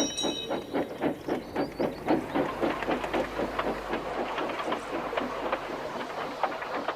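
Steam locomotive puffing along at an even pace, about four to five chuffs a second, with a short high squeal right at the start.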